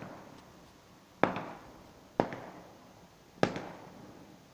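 Fireworks exploding: four sharp bangs roughly a second apart, each trailing off in a fading echo.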